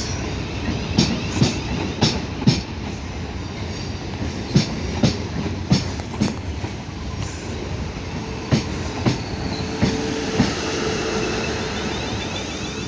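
Class 450 Siemens Desiro electric multiple unit rolling in slowly, its wheels clicking over rail joints and pointwork in pairs of clacks about half a second apart, over a steady rumble. A faint steady hum joins about seven seconds in and lasts a few seconds.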